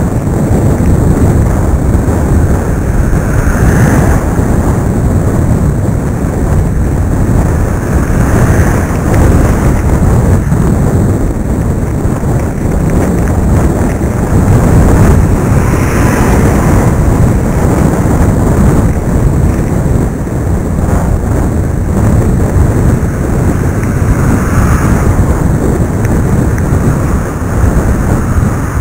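Wind buffeting the microphone of iVUE 720p camera glasses worn while cycling, a loud steady rumble that swells and eases, even with foam tape over the mic hole.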